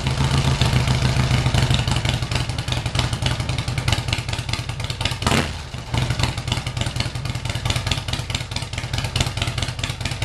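Harley-Davidson Twin Cam 88 V-twin of a 2003 Road King running at idle with an even, fast firing rhythm, freshly started after its fuel filter, fuel pressure regulator housing and fuel check valve were replaced. The engine keeps running, and the level dips briefly about halfway through.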